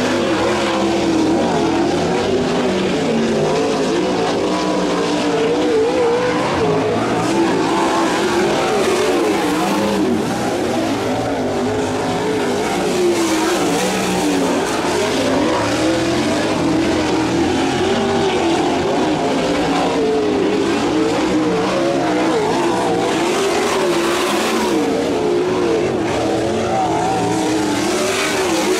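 USAC sprint car's 410-cubic-inch V8 engine running laps on a dirt oval, its pitch repeatedly rising and falling as the throttle opens and closes through the turns and straights.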